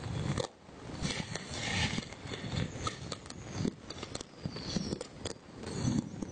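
Fireworks going off: irregular sharp bangs and crackles, with deeper booms among them.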